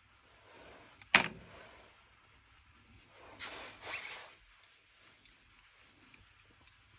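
Hands handling rifle projectiles and a caliper at a bench: one sharp click about a second in, then two short scrapes around three and a half and four seconds in, with a few faint ticks after.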